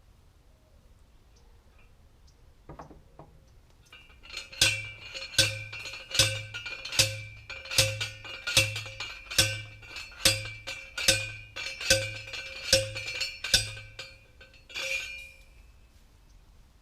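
Steel T-post being driven with a metal post driver: about a dozen ringing metal clanks, each with a dull thud, evenly spaced a little under a second apart, then one weaker strike.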